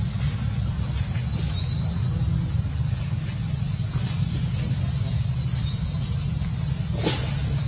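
Outdoor ambience: a steady high buzz of insects over a constant low rumble, the buzz swelling about four seconds in. One sharp click comes near the end.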